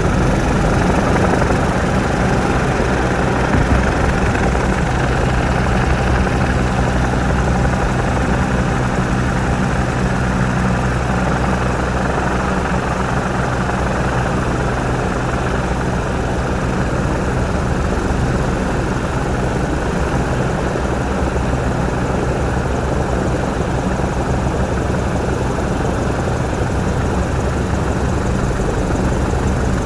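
Helicopter turbine and main rotor running steadily, heard from inside the cabin of the aircraft above.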